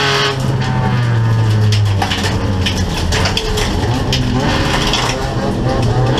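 Folkrace car's engine running hard under load, heard from inside the cabin, with gravel and stones clattering against the body in many sharp clicks. The steady engine note breaks off about two seconds in and wavers after that.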